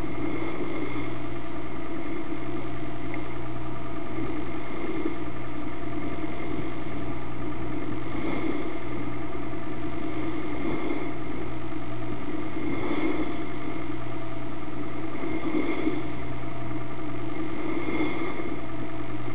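A motor yacht's engine running steadily: a continuous drone with a low hum and a slight swell every few seconds, cutting off suddenly at the end.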